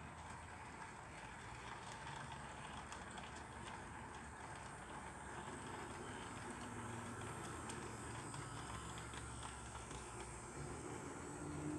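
HO scale model train rolling slowly along the track: wagon wheels click faintly over the rail joints over the quiet whir of the Frateschi NZR DA locomotive's motor.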